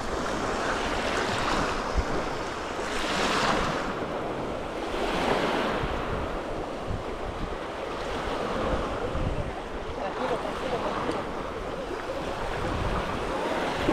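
Surf washing in and out, with wind buffeting the microphone; the noise swells and eases several times.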